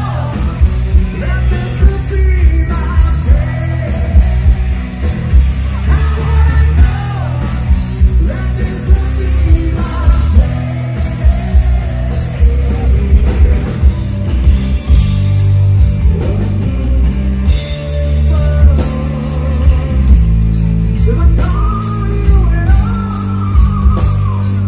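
Rock band playing loud with a male lead singer over electric guitars, bass and drums.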